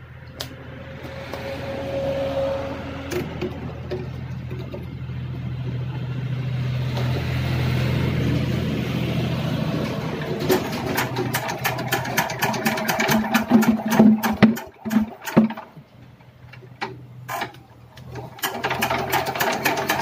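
Kirloskar Varsha single-cylinder diesel engine being hand-cranked: a steady whirring spin, then from about ten seconds in a fast clatter of firing knocks that falters and dies away for a couple of seconds before picking up again near the end. It is struggling to start, a fault the mechanic traces to a worn cylinder bore and piston.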